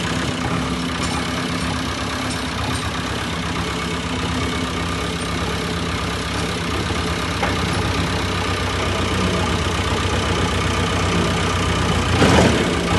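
JCB 3DX backhoe loader's Kirloskar diesel engine idling steadily, with a brief louder rush of noise near the end.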